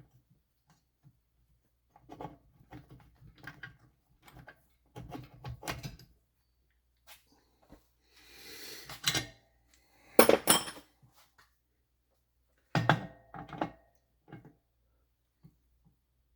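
Engine parts and tools being handled on a workbench: a run of scattered knocks and clunks, a short scraping rush about halfway, and two louder clunks a little later.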